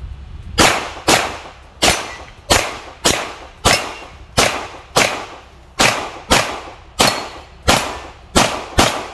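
A pistol fired in a rapid string of fourteen shots, sharp cracks roughly half a second to three-quarters of a second apart, each trailing off briefly: a timed practical-shooting stage run against targets.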